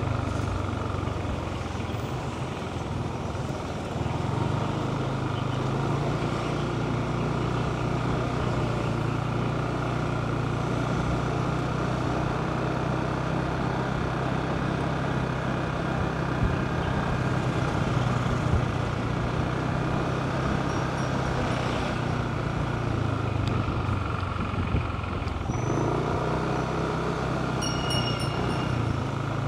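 Motorcycle engine running steadily while riding through city traffic, with road and wind noise around it. The engine eases off near the start, picks up again after a few seconds, and drops briefly once more near the end.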